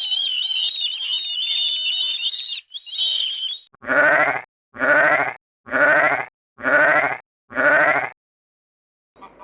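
Busy high-pitched chirping for the first three and a half seconds, then five evenly spaced bleats, about one a second, each about half a second long, from a sheep or goat.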